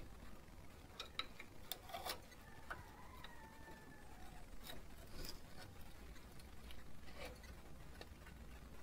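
Scattered light metallic clicks and taps of a hand tool working at a car's front brake caliper. A faint thin squeak comes from about two to four seconds in.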